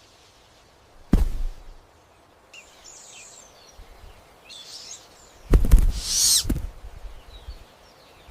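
A bird calling in short high chirps, with a louder call about six seconds in. Dull low thumps about a second in and just before the loud call.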